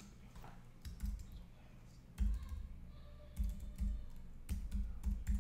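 Keys tapped on a computer keyboard: several irregular keystrokes, each with a dull thump, as a phone number is typed in.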